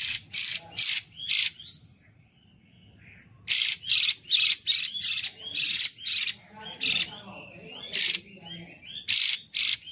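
Chinese hwamei singing loudly in clear, ringing runs of quick high notes. The song breaks off for about a second and a half, about two seconds in, then resumes in dense phrases.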